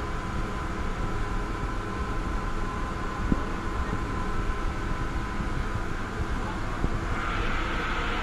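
Steady mechanical hum with a faint thin whine in it, turning louder and hissier about seven seconds in.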